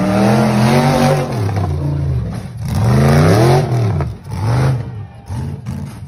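Rock bouncer buggy's engine revving hard in three rising-and-falling bursts as it claws up a steep dirt hill. The engine drops off near the end, with a few knocks as the buggy tips over.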